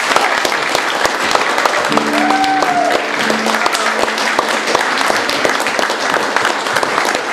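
Audience applauding steadily, a dense patter of many hands clapping. About two seconds in, a brief call rises and falls above the applause.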